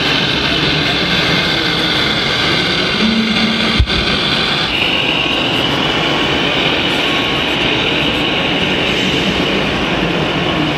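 Scale RC truck's hydraulic crane working: a steady mechanical whirring with a high whine, over the general noise of a busy exhibition hall. The sound breaks off for an instant just before four seconds in.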